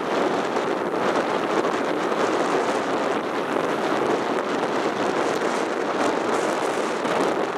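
Rough sea surf washing in and breaking over shoreline rocks in a heavy swell: a steady rushing of water with no single loud crash.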